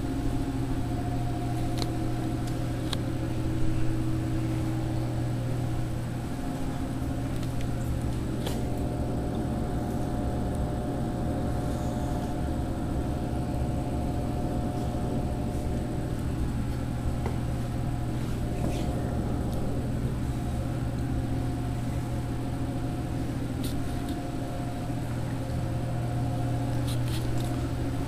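Steady electrical hum of refrigerated vending machines, their cooling compressors and fans running, with a few light clicks.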